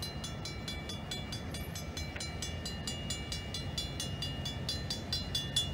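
Railroad grade-crossing warning bell ringing in rapid, even strikes while the crossing gates lower, signalling an approaching train. A low steady hum runs underneath.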